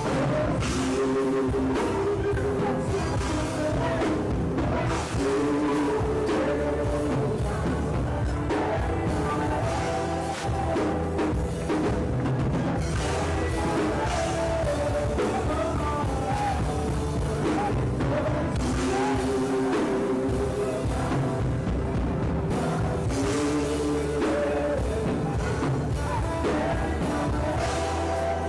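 Live worship music with drums, a sustained melody and singing, playing steadily throughout.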